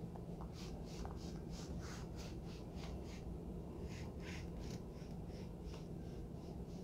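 Soft whispered counting under the breath: a quick run of faint, hissy syllables, several a second, with a short pause a little past halfway.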